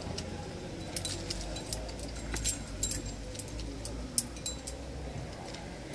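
Metal climbing gear on a harness clinking: carabiners jangling in quick, irregular clicks as the climber moves, over a low rumble.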